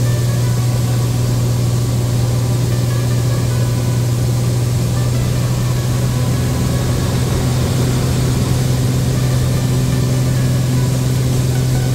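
Light airplane's engine and propeller droning steadily, heard from inside the cabin in cruise, with a strong low hum. A slightly higher tone joins about halfway through.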